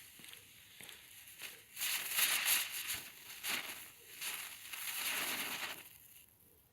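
Small Category 1 youth firework burning with a dense hiss and crackle, starting about two seconds in and dying out about four seconds later.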